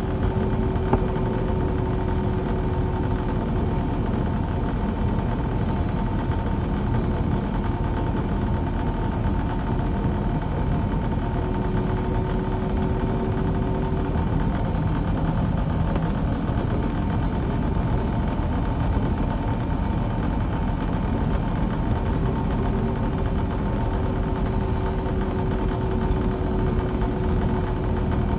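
Steady cabin noise inside an Airbus A321-231, its IAE V2500 turbofan engines running evenly, with a faint hum that fades in and out three times. A single light click about a second in.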